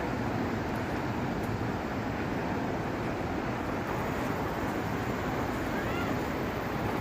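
Steady rumbling noise of a vehicle on the move, heavy in the low end and even throughout. About six seconds in comes one brief rising-and-falling call.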